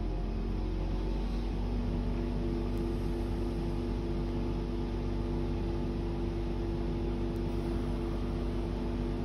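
VW Touareg 3.0 TDI's electric engine cooling fan running fast with a steady hum and whine, while the engine itself is not running.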